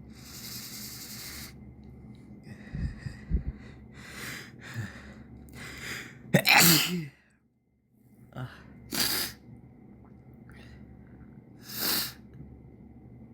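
A person sneezing: a run of short breaths and sniffs builds to one loud sneeze about six seconds in. Further sharp breaths and sniffles follow, two of them strong, near nine and twelve seconds in.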